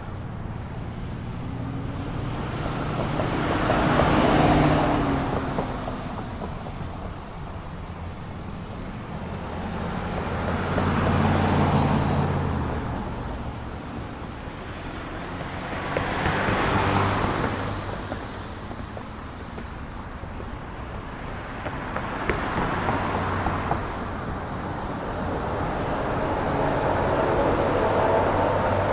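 Street traffic: a steady rumble of engines, with vehicles passing one after another about every five or six seconds, each swelling and fading.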